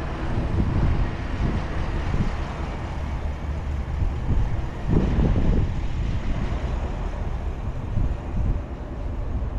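2023 Chevrolet Tahoe Premier with its 5.3 L V8 being driven: steady engine and road rumble, with a louder low swell about halfway through.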